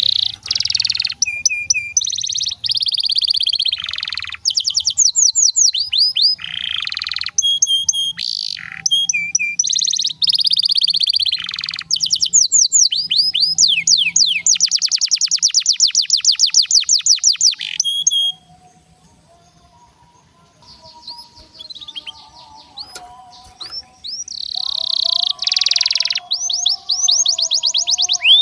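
Domestic canary singing a long song of fast trills, rolls and rapid falling sweeps. The song breaks off about two-thirds of the way through, leaving only faint low warbling, then resumes near the end.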